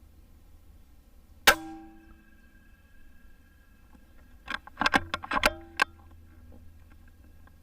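A single sharp shot from an Altaros M24 PCP air rifle about a second and a half in, with a short metallic ring after it. A few seconds later comes a quick run of about six metallic clicks and clinks, some ringing briefly.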